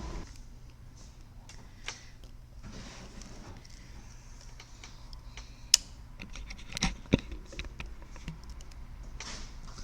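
Scattered light clicks and taps of small parts and tools being handled on a workbench, with one sharp click about six seconds in and two more a second later, over a faint steady hum.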